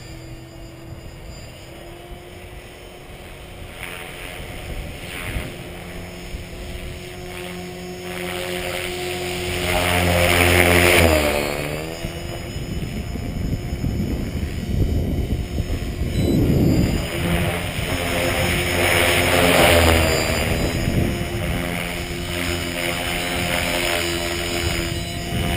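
Gaui X5 electric radio-controlled helicopter in flight: a steady whine from the motor and main rotor. It swells louder and drops in pitch as the helicopter passes close about ten seconds in, and grows loud again in the second half as it comes back low.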